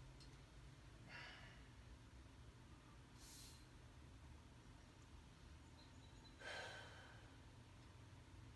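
A man breathing out heavily three times, sighing exhales about a second in, about three seconds in and near six and a half seconds in, the last the loudest, while he rests at the pull-up bar between efforts.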